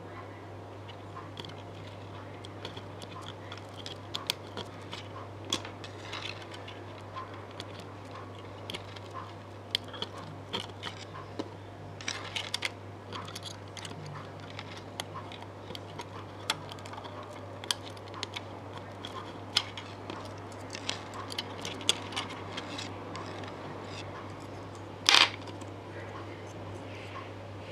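Small, irregular clicks and ticks of electronic parts and wires being handled and plugged in, over a steady low electrical hum, with one brief louder noise about 25 seconds in.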